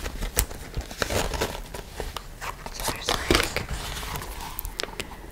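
Fingers handling a leather zip pouch close to the microphone: crinkly rustling of the leather with many small sharp clicks and taps.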